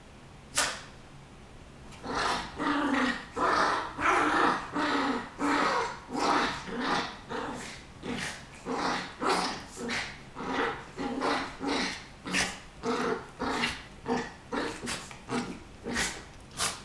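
Two poodles play-fighting, growling in short bursts of about two a second that begin about two seconds in, with some barks mixed in. A single sharp sound comes about half a second in.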